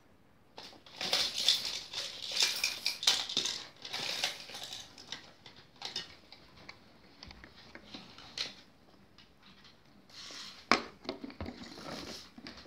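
A baby's plastic toys clattering and knocking as he handles them: a dense run of clicks and rattles over the first few seconds, then scattered knocks, and another short rattling burst near the end.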